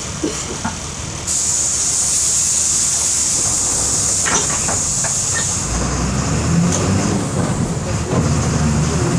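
Volkswagen 17.230 EOD bus with its engine running. About a second in, a sudden loud hiss of compressed air from the bus's air system starts and fades away over several seconds. A few short knocks come around the middle, and a low engine drone rises near the end.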